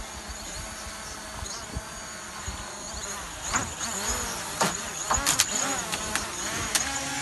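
DJI Mavic Pro quadcopter hovering close overhead, its propellers buzzing over wind and sea noise. In the second half it gets louder and its pitch shifts as it manoeuvres in, with several sharp knocks.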